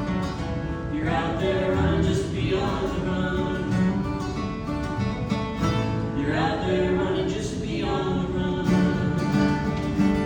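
A song performed by a singer with guitar accompaniment. Held chords sound throughout, and sung lines begin about a second in and again about six seconds in.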